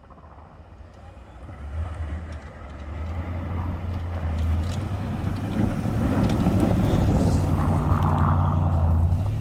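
Toyota Tundra pickup's engine running under load while plowing snow. It grows steadily louder over the first several seconds and holds a loud, steady hum with a rushing noise over it.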